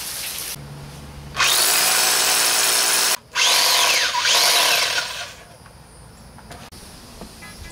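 Corded rotary hammer drill boring into a concrete slab with a long masonry bit. It runs loud for about two seconds, drops out for a moment, runs again for about two more seconds with its pitch sweeping up and down, then goes quiet after about five seconds.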